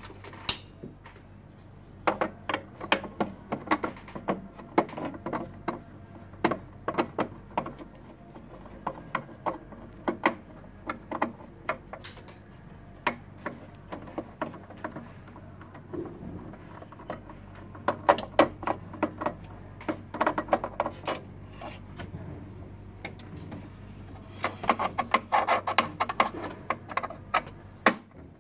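Irregular clicks and clatter of plastic and metal parts being handled as a Kyocera M4132/FS6525 copier's laser scanner unit is taken apart, coming in clusters. A low steady hum runs underneath.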